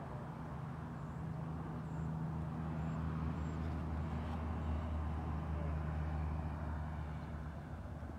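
Low, steady hum of a vehicle engine that grows louder over the first few seconds and eases off near the end.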